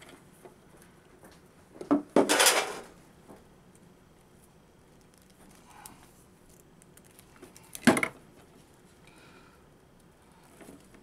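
Metal hand tools clattering: pliers handled among the tools and against the wall pack's metal housing, with a short rattle about two seconds in and one sharp clink about eight seconds in.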